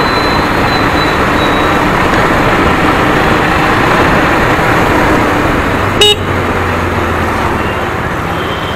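KTM Duke 250 BS6 being ridden at about 45 km/h in traffic: a steady rush of wind and engine, with no ticking, as the rider says the engine now runs smooth. A short vehicle horn toot about six seconds in.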